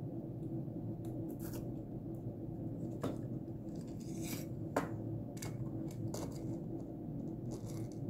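Small clicks and scrapes as hands handle a small circuit board and try to push a replacement component's leads into it, over a steady low hum. The sharpest click comes just before the middle.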